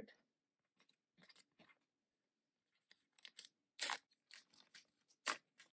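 Sealed collector's-card wrapper crinkling and being torn open by hand: scattered sharp crinkles, loudest about four seconds in and again near the end.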